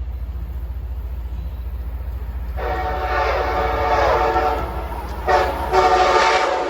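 Locomotive air horn sounding a chord: one long blast, a brief short blast, then another long blast, over a steady low rumble of the train.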